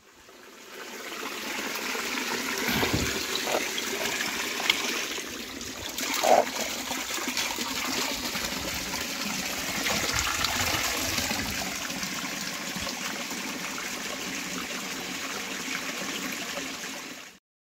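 Spring water trickling along a folded green leaf used as a spout and splashing into a small rock pool, a steady pouring sound. A brief louder sound stands out about six seconds in.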